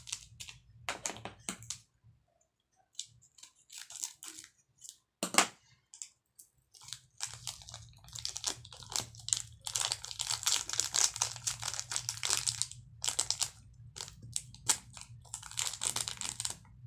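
A small plastic seasoning sachet crinkling in the fingers as it is shaken and squeezed over food, in irregular bursts of crackling. There is one sharp snap about five seconds in, and the longest run of crinkling comes about ten seconds in.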